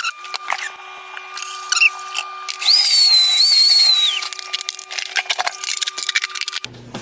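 Wet/dry vacuum running with a steady motor whine, sucking the last water out of a toilet bowl. The hose slurps, with a high wavering whistle for about a second and a half in the middle, and the motor shuts off near the end.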